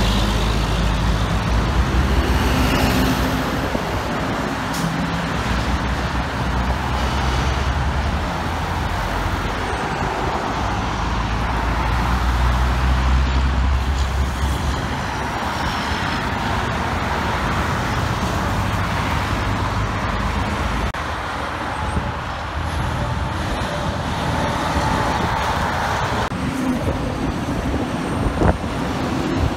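Highway traffic with heavy diesel dump trucks and cars passing. A deep engine rumble lasts for about the first half, then fades into steady tyre and traffic noise.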